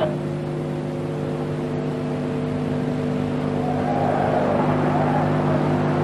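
Football stadium crowd noise, with a swell of crowd voices a little past the middle, over a steady low hum.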